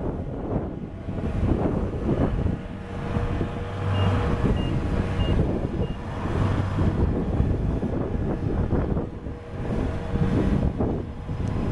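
Kubota DC-70 Plus combine harvester running steadily. Four short high beeps from its warning beeper come about four seconds in.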